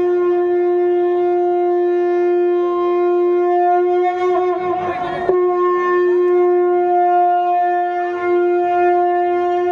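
A conch shell (shankha) blown in one long, steady, unbroken note, with a small knock about five seconds in.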